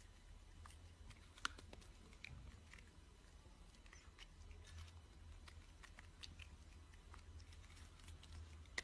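A cat chewing food, heard very faintly as scattered small clicks and crunches over a low hum, with one sharper click about one and a half seconds in.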